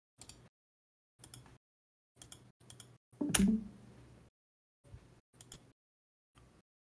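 Computer keyboard keystrokes and clicks in short scattered clusters with dead silence between them, as a command is copied, pasted into a terminal and run. The loudest cluster comes about three and a half seconds in.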